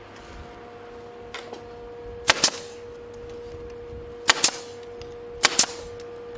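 Sharp hammer strikes in quick double blows, three pairs a second or two apart, over a steady hum.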